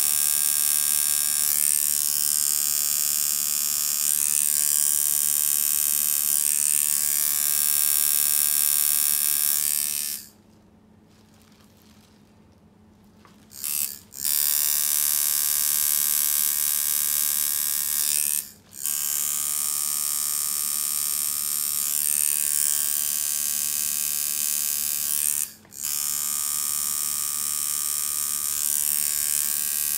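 Custom-built tattoo machine buzzing steadily as its needles work ink into skin, with many overtones. It stops for about three seconds around a third of the way in, then starts again, and cuts out briefly twice more later on.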